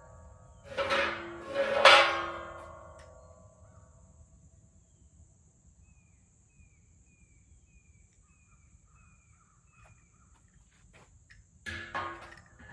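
Background music: plucked guitar chords struck three times and left ringing out, a run of short high notes in the middle, and another chord near the end.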